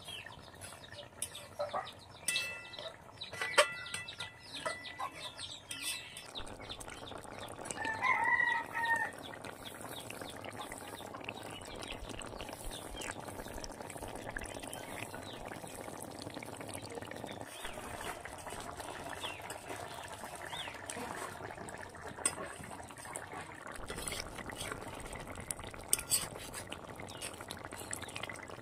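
A metal ladle clinks and scrapes against an iron kadai in sharp clicks for the first few seconds. About eight seconds in, a chicken calls once, briefly, the loudest sound. After that the curry simmers with a steady, fine bubbling.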